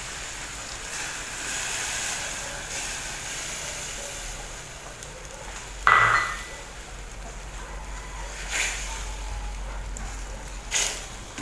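Water poured into a hot stainless steel frying pan of squash and water spinach, then a steady sizzle and simmer. A sharp metallic clink comes about six seconds in, and spatula scrapes against the pan near the end.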